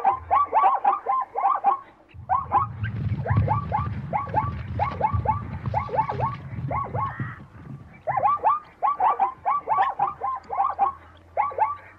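Rapid chattering animal calls, short and hooked, several a second in bouts broken by brief pauses about two and eight seconds in. A low rumble sits under them for several seconds in the first half.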